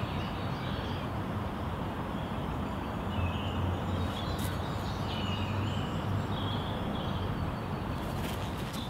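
Steady outdoor background rumble in a park, with a few short bird chirps about three, five and six and a half seconds in.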